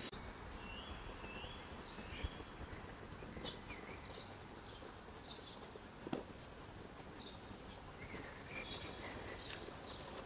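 Faint outdoor ambience with small birds chirping now and then, and a soft thump about six seconds in.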